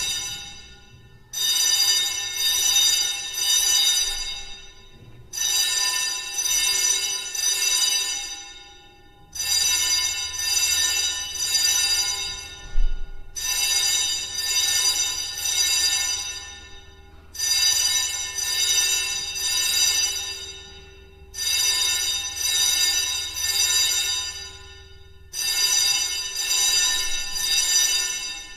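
Fire alarm bell ringing in repeated bursts: each burst of metallic ringing starts abruptly, lasts about three seconds and dies away, with a new burst every four seconds.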